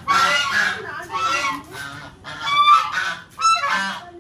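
Loud, repeated honking calls of a large bird, about five calls of half a second each, one after another.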